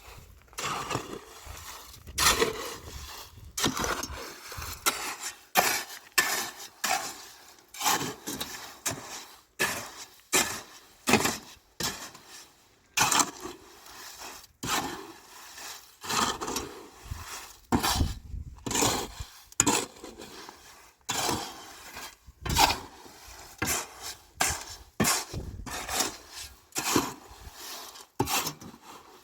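An irregular run of sharp knocks and clatters from hard objects, one or two louder strokes a second.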